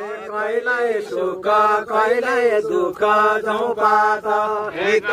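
Men chanting a dhusko, the Far-Western Nepali song that men sing during rice planting, in drawn-out phrases of held notes about a second long.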